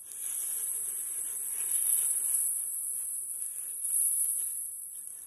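Hot stock pouring in a stream into a stainless steel pot of toasted risotto rice, swelling and fading, over a steady high hiss.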